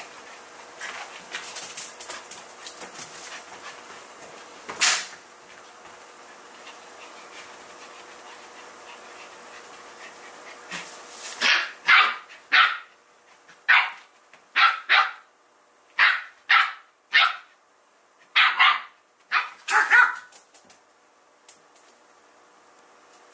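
Soft scuffling of two dogs playing, then a dog barking: about a dozen short barks in the second half.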